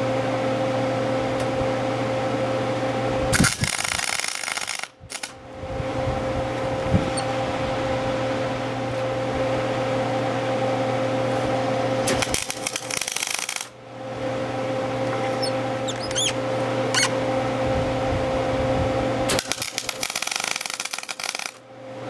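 Welding arc crackling in three short tack welds of about one and a half to two seconds each, tacking a steel steering sleeve in place, with a steady hum between them.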